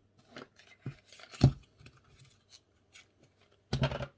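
Handling noise from a make-up tube and its cap at a wooden table: scattered light clicks and taps, a louder knock about a second and a half in, and a short scratchy burst near the end.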